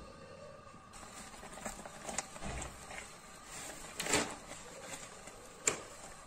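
A silicone spatula stirring and scraping thick egg-and-milk halwa around a metal pan, with a few short scrapes or knocks standing out, the loudest about four seconds in.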